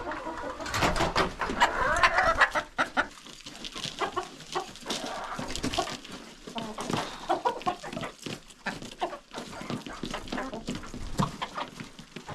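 Chickens clucking, with many short, sharp taps scattered among the calls.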